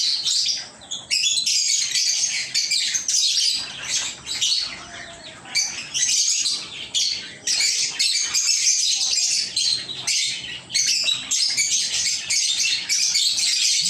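Several lovebirds chirping in a dense, continuous chatter of rapid, high calls, with a few brief lulls.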